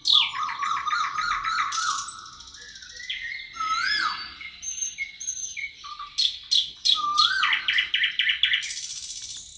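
Several songbirds singing and chirping together, with rapid trills and a whistled note that rises and falls, repeated a few times.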